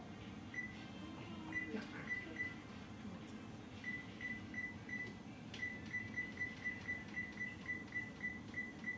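Digital oven timer keypad beeping as the timer is set: short, high single beeps at first, then a quick even run of about four beeps a second from a little past the middle.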